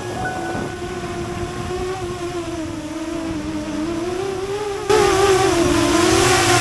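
Darwin 129 FPV quadcopter's motors and propellers whining in flight, the pitch wavering up and down as the throttle changes. It gets abruptly louder about five seconds in.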